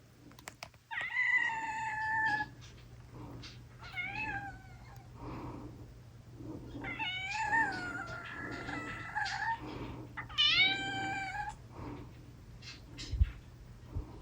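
A domestic cat meowing four times in a high, small voice, two long drawn-out meows and two shorter ones, each bending in pitch. A brief low knock near the end.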